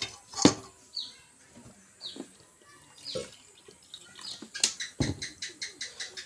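Small birds chirping: short falling chirps come about once a second. Sharp clicks fall among them, with a quick run of about six clicks a second near the end.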